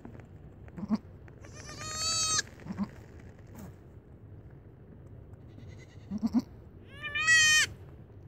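Newborn goat kid bleating twice, high-pitched and wavering, about two seconds and seven seconds in, with a few short low grunts in between.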